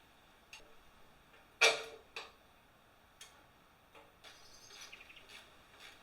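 A few light clicks and knocks of steel being handled, with one louder clank about two seconds in that rings briefly, then a short patch of light clattering.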